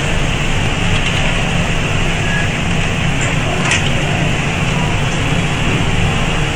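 Steady whirring hum of running workshop machinery and fans, with one brief light tick a little past the middle.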